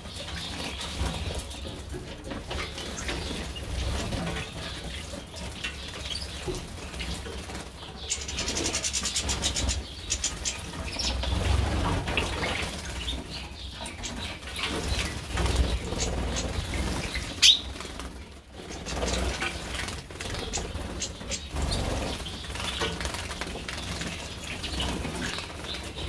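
Small finches and a canary bathing in a shallow water tray: wings fluttering and splashing in short bouts, with scattered chirps and twitters, including a quick trill and one loud sharp chirp about two-thirds of the way in.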